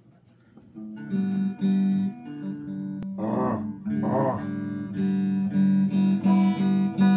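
Electric guitar starting up about a second in, with two strummed chords in the middle, then settling into a steady repeating riff of notes, about three a second.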